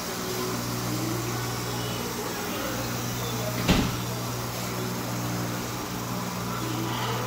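A steady low hum with faint voices in the background, and a single sharp knock a little past halfway.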